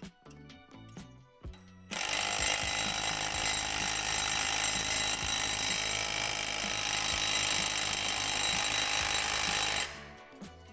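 Power drill running steadily for about eight seconds, driving in the hardware that holds the adjustment stand. It starts about two seconds in and cuts off near the end, over light background music.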